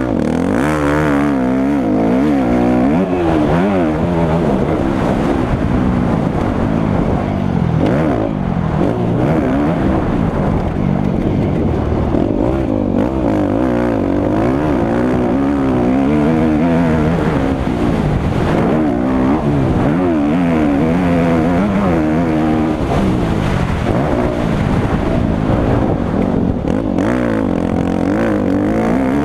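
Motocross bike engine heard from on the bike, revving up and falling back again and again as the rider accelerates and shifts through turns and straights of a dirt track.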